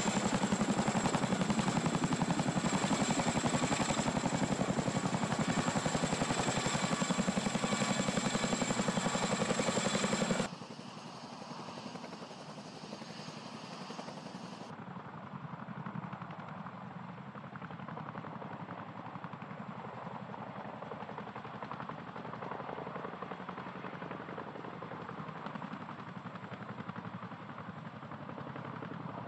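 CH-47 Chinook tandem-rotor helicopter hovering close by, its rotor blades beating rapidly under a steady high turbine whine. About ten seconds in, the sound cuts abruptly to a much quieter, steady rotor and engine noise.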